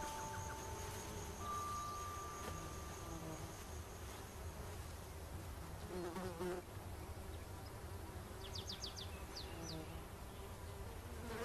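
Insects buzzing steadily around resting lions, with a few short high chirps about three-quarters of the way through.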